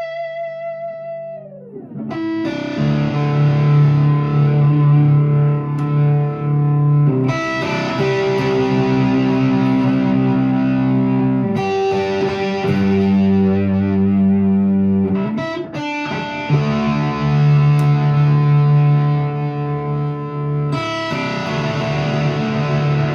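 1989 Fender HM Strat electric guitar played with overdrive through a Peavey Classic 50 amp and Marshall 1965A 4x10 cabinet. A held note drops in pitch and fades about a second and a half in, then a run of distorted chords, each let ring about four seconds before the next.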